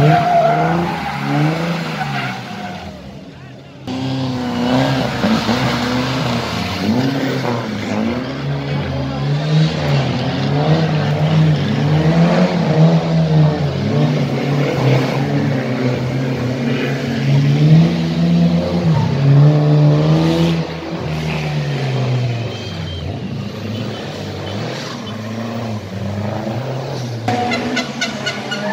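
Rally car engines revving hard, their pitch climbing and dropping with throttle and gear changes as one car after another passes, with spectators talking.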